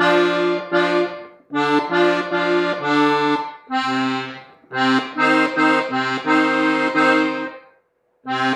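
Gabbanelli diatonic button accordion tuned in F, played in short phrases of sustained reedy notes and chords with brief breaks between them, and a short stop near the end.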